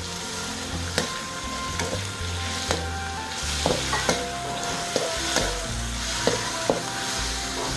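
Sliced raw beef and garlic sizzling in a hot steel wok, stirred and turned with a metal spatula that clinks and scrapes against the pan a dozen or so times from about a second in.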